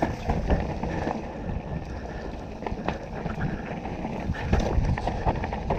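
Mountain bike (Canyon Torque) riding a dirt trail: a steady rumble of tyres and wind buffeting the microphone, with frequent short clicks and rattles from the bike throughout.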